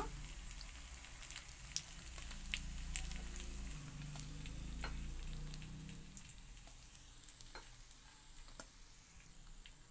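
Hot oil sizzling faintly in a paniyaram pan as cooked paniyarams are lifted out, with scattered light clicks and taps from the utensil against the pan and a steel plate. The sizzle fades over the second half.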